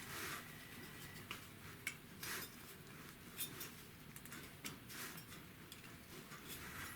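Faint, scattered light clicks and taps of small metal carburetor parts being handled and worked loose while a Rochester Quadrajet is taken apart.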